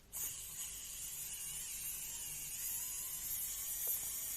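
Wow Stick electric precision screwdriver running as it undoes small screws, a steady buzzing whir that starts just after the beginning.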